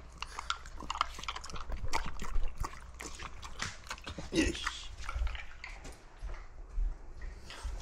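French bulldogs chewing stick treats, with irregular crunching clicks, and a brief dog whine about four seconds in.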